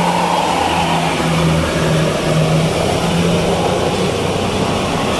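Bus engine running under load with steady road noise, a low engine hum that comes and goes in short stretches.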